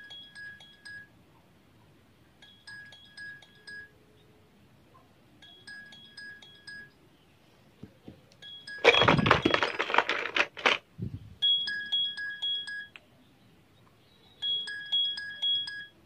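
Sony Xperia smartphone ringing with an incoming call: a short chime phrase of a few quick notes, repeating every one and a half to three seconds and louder in the second half. A loud rustling clatter of the phones being handled a little past the middle, and a faint low ringback tone from the calling phone about four seconds in.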